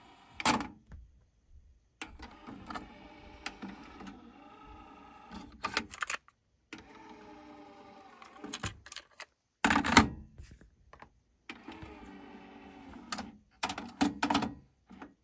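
Technics RS-TR373 cassette deck's transport and controls: a sharp clunk as the stop button is pressed, then a mechanism whirring, broken by a series of clicks and clunks from buttons, the cassette door and the tape being handled.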